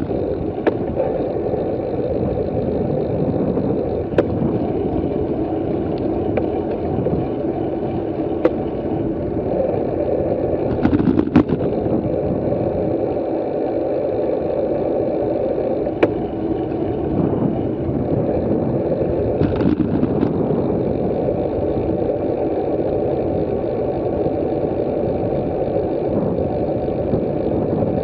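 Steady, muffled wind and road rumble from a bicycle-mounted camera riding at about 26 km/h, with a few short sharp clicks or rattles scattered through.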